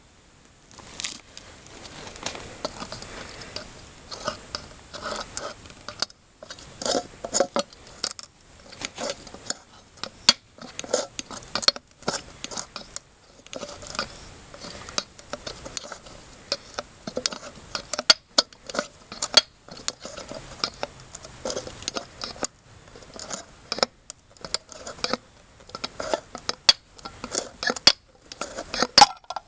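Metal cookware and small gear being handled: scattered clinks, taps and rattles with rustling in between.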